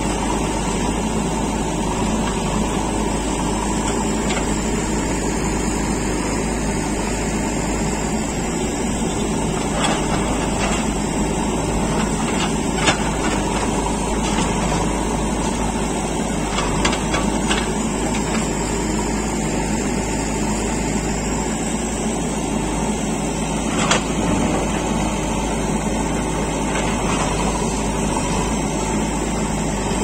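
JCB 3DX backhoe loader's diesel engine running steadily under load while the backhoe digs a trench. A few sharp knocks stand out from the digging.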